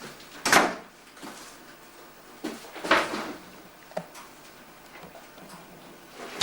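Uncapping a honeycomb frame: four short scrapes and knocks of the capping knife and the wooden frame, the loudest about half a second in.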